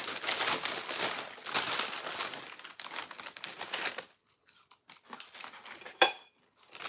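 Paper food bags crinkling and rustling as they are handled and opened, dense for about four seconds and then dying down. One sharp click about six seconds in.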